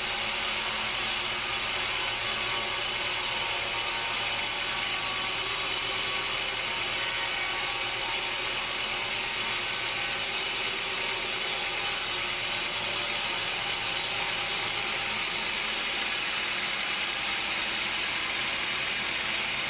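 Steady mechanical noise from sawmill machinery running continuously, an even hiss-like din with no breaks or changes in level.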